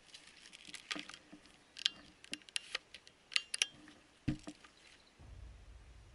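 Dry leaves and twigs crackling and snapping irregularly, with a few dull thumps among them; a low rumble comes in about five seconds in.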